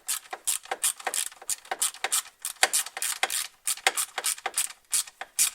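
A socket ratchet with a tall socket clicking in quick back-and-forth strokes, about four or five a second, while it drives in the M5 screws that hold a radiator fan motor to its shroud.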